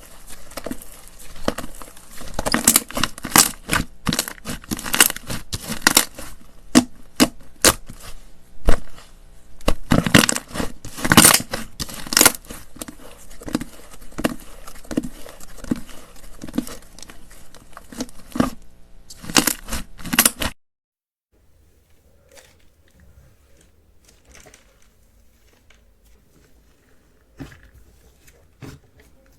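Clay slime being kneaded and pulled by hand: a dense run of sticky pops, crackles and tearing snaps. About two-thirds of the way through it stops abruptly, leaving only faint, scattered squishes and clicks.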